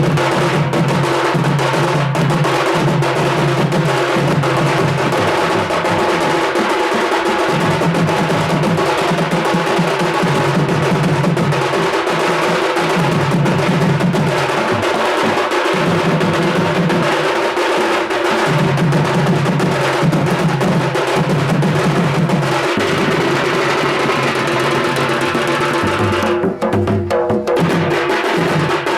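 Loud percussion music: fast, continuous drumming and clacking strikes over a steady held tone, with a deeper tone returning every two or three seconds.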